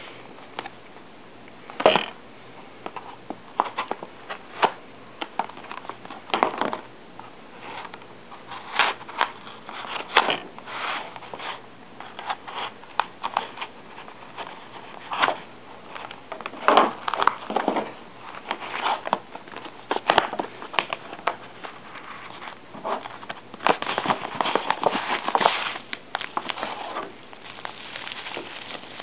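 A paper Priority Mail envelope being slit open with a butterfly knife: scattered sharp clicks and taps, with the paper crinkling and rustling as it is cut and handled. Near the end, the crinkle of bubble wrap being handled.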